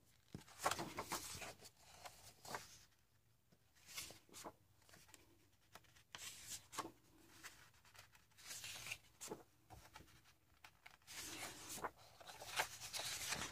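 Pages of a thick hardcover coloring book being turned by hand: faint paper swishes and rustles, several in a row at uneven intervals, with a longer rustle near the end.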